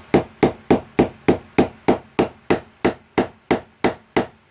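Small brass-ended hammer tapping a pin into a Smith & Wesson Sigma pistol, driving it home: a steady run of about fourteen quick strikes, roughly three a second, stopping near the end.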